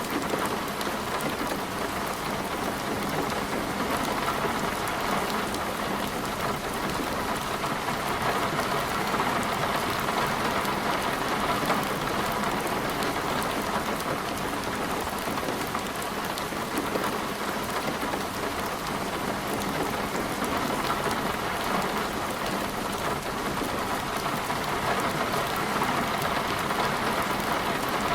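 Rain falling steadily in a storm, a dense even hiss of many drops striking a surface.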